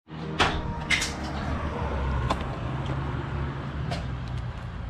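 A few sharp clicks and knocks, as of a door being handled, over a steady low hum of a car on the road.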